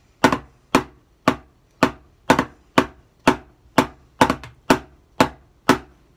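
Wooden drumsticks striking a drum practice pad in an even pulse, about two strokes a second, with one quick double stroke a little past the middle: a roll-pulsation exercise played at a slow tempo.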